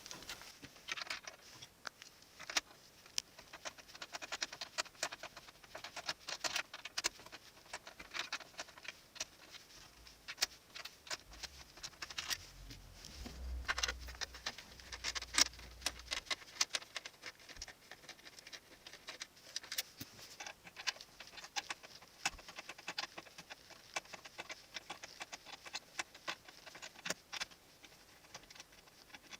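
Many rapid, irregular small clicks and taps of a T20 Torx screwdriver and fingers working screws out of a car dashboard's stereo fitting, sped up. A low rumble runs for a few seconds in the middle.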